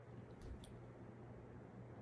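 Near silence: faint room tone with a low steady hum and two faint clicks about half a second in.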